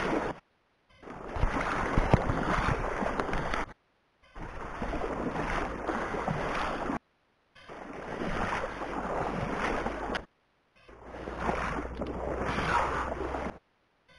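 Water sloshing and swishing around the legs of someone wading quickly through shallow marsh water, in long surges of about three seconds each, every one cut off abruptly.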